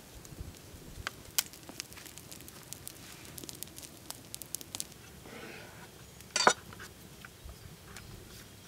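Small wood fire crackling with many sharp pops as sticks are poked into it, then one loud sharp knock about six seconds in.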